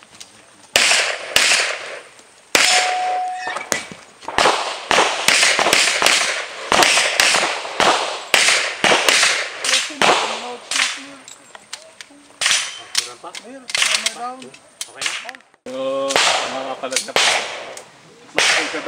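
Pistol shots fired in quick pairs and short strings, with brief breaks between strings, as a competitor shoots a practical-shooting course of fire. Each crack trails off in echo.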